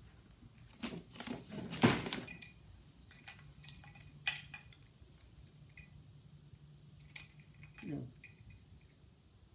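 Metal clinks and scrapes of a wrench gripping and turning the parts of a phonograph's lid-support shock absorber as they are screwed together, busiest in the first few seconds, then single clicks with a brief ring.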